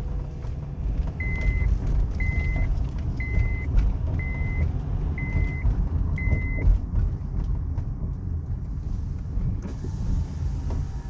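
Car rolling over bumps with a steady low road rumble and scattered knocks from the suspension: a weird noise on bumps that the owner puts down to the coilovers. A high beep repeats six times, about once a second, in the first half.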